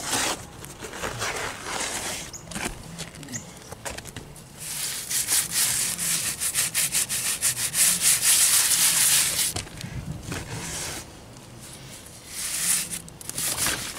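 Cement being rubbed by hand into the face of a concrete-block chimney: gritty, rasping strokes against the block. The strokes are loudest through a long stretch in the middle and ease off for a moment near the end.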